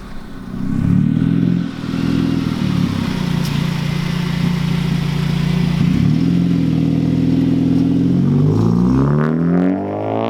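Car engine and exhaust under hard acceleration, holding steady notes with abrupt breaks between them, as at gear changes, then revving sharply upward near the end.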